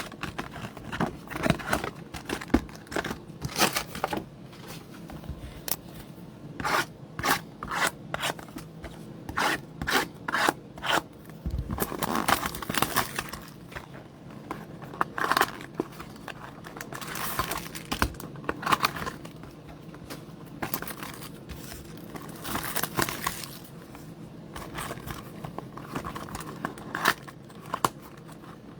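Foil trading-card pack wrappers being torn open and crinkled, with cards scraping as they are handled: an irregular run of sharp rips and crackles with short pauses.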